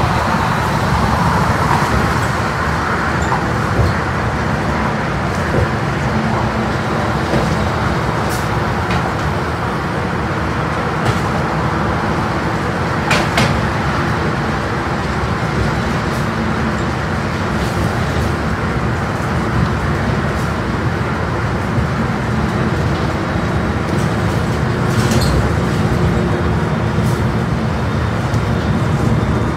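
City transit bus running, heard from inside the passenger cabin: a steady drone of engine and road noise, with a few short sharp rattles and clicks from the cabin fittings.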